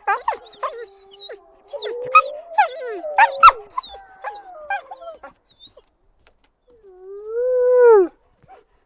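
A wolf pack chorus: several wolves howl together over rapid yips and yelps for about five seconds. Near the end one wolf gives a single howl that rises and then falls.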